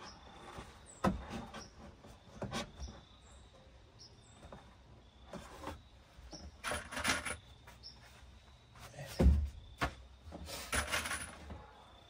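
Lengths of pine framing being handled and set against a wooden window box: scattered knocks and wood rubbing, with one heavy thump about nine seconds in.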